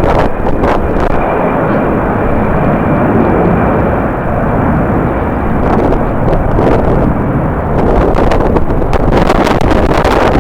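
Jet airliner engines running, with a faint steady high whine through the first half, under strong wind buffeting the microphone.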